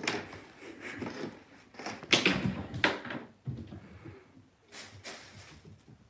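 Several loud rustles and bumps from a kitten at play on a wooden floor among plastic bags, together with handling noise from the moving phone. The loudest come about two and three seconds in, with another about five seconds in.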